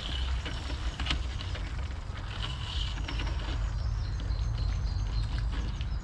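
Birds singing in short chirps and phrases over a steady low rumble, with a few sharp clicks of footsteps from the walker.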